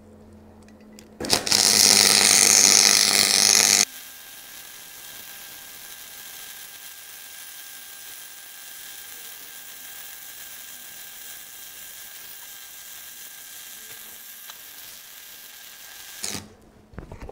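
Parkside PFDS 120 A2 flux-cored wire welder's arc crackling and hissing as a pulled bead is laid on steel angle. It strikes about a second in and is loudest for the first few seconds, then settles into a steadier, quieter hiss with a faint steady whine until it stops near the end. The welder judges the current too low for this bead, which came out very thick.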